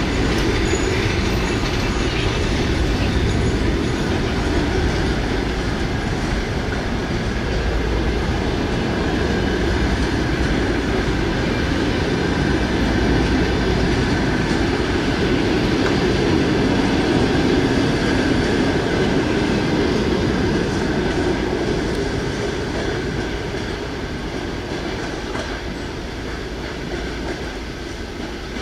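Passenger coaches of a long-distance express train rolling past on the rails, a steady, loud rumble of wheels and running gear that fades away over the last few seconds as the last coach draws off.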